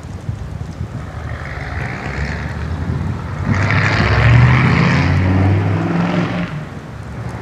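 Ford 7.3 V8 truck engine through a straight-piped side-stack exhaust, pulling hard and getting louder, loudest about four to five seconds in, then easing off near the end.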